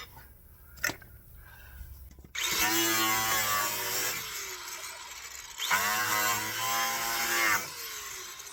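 A handheld power tool runs twice, each time for about two seconds, cutting away the plastic splash shield, and winds down after each run. A couple of short clicks come just before.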